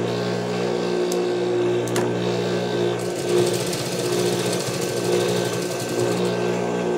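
Juki industrial sewing machine running, the needle rapidly stitching strips of denim onto a rug base over the steady hum of its motor.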